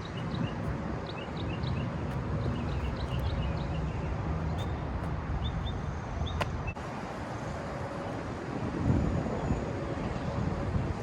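Outdoor ambience: wind on the microphone over a steady low rumble, with small birds chirping in short high notes during the first few seconds and again near the end. A single sharp click past the middle.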